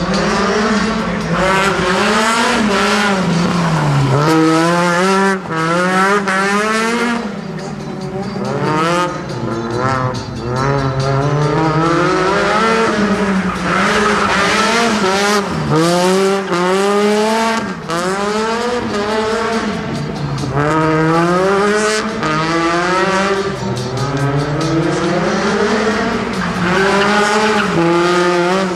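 Rally car engine revving hard, its pitch rising and falling again and again every second or two, with tyres squealing.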